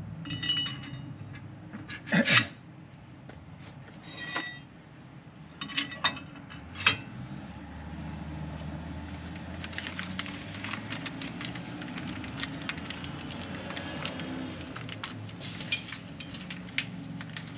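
Metal parts clinking and ringing as U-bolts and nuts are handled and fitted around a Mercedes Sprinter van's rear axle and leaf spring pack. A few sharp clanks fall in the first seven seconds, followed by lighter, irregular clicking over a steady low hum.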